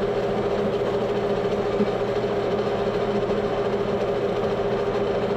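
Small engine lathe running steadily, spinning small-block Ford cam bearings while fine emery cloth is held against them to remove burrs from the freshly cut oil grooves.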